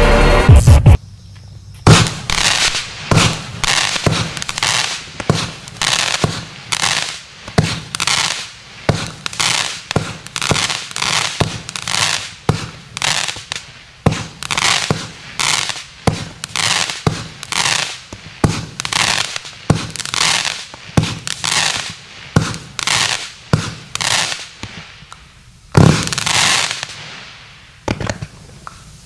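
Stienen 'Street Muscle' consumer fireworks cake firing a rapid run of shots, about two a second, each with a short crackling tail. The run ends with one louder shot near the end, followed by a couple of faint pops.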